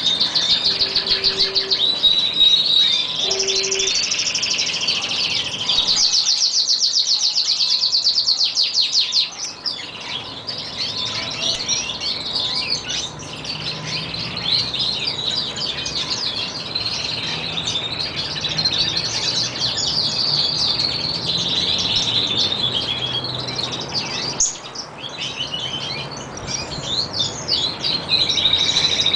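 Canaries singing continuously, a dense run of chirps, warbles and held notes, with a fast rolling trill about six seconds in that lasts some three seconds.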